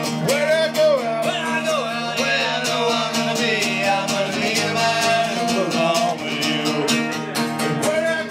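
A man singing with a steadily strummed acoustic guitar: a solo live performance through a microphone.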